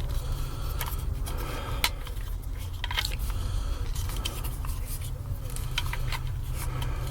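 Scattered small clicks and scrapes of metal lightsaber hilt parts being unscrewed and handled, over a steady low hum.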